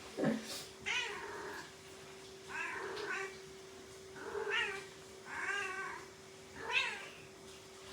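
Kitten meowing repeatedly, about six short high calls roughly a second apart.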